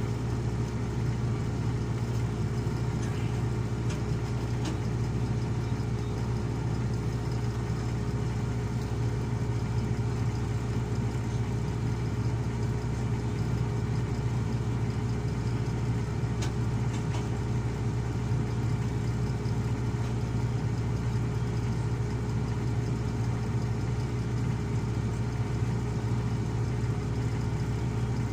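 Heavy diesel engine running steadily at a constant speed: a low hum with a steady higher tone over it, without revving.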